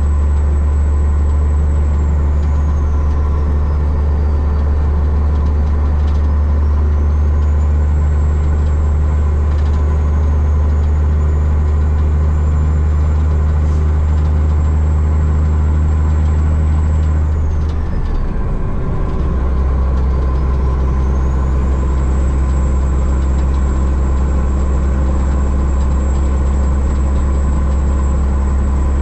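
Loaded dump truck's engine droning steadily at road speed, heard from the cab, with a thin high whistle that falls and rises again. About 18 s in the drone breaks briefly and then settles again.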